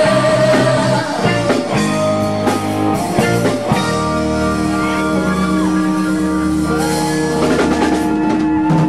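Live rock band playing electric guitar chords over drums. About four seconds in, the band holds one long ringing chord with cymbal crashes, as at the close of a song.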